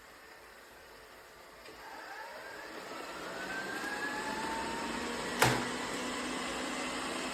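MAMNV robot vacuum's motor spinning up, a rising whine that grows louder, then a single sharp click about five and a half seconds in, after which it runs at a steady hum.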